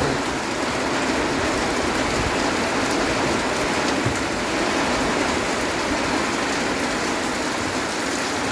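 Heavy rain pouring steadily in strong wind, a dense even hiss with no breaks.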